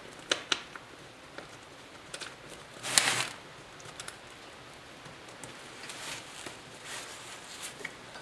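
Light metallic clicks and taps of a bolt being turned in to hold a motorcycle seat strap, with a short scraping rustle about three seconds in.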